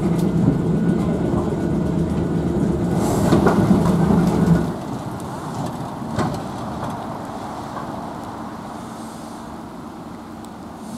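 Electric tramcar (Blackpool Vanguard replica 619) running along the track, heard on board as a steady motor hum with wheel noise. About halfway through, the sound drops suddenly to a quieter lineside sound of the tram moving away and fading.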